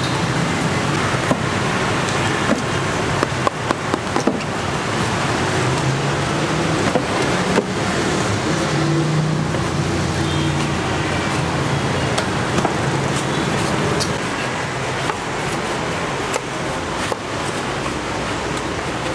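Machetes chopping and shaving green coconut husks, scattered sharp knocks, over a steady hum of street traffic.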